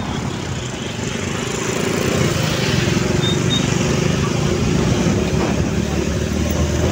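Motorcycle engines running on the move, a steady rumble that grows louder about two seconds in as another motorcycle rides close alongside.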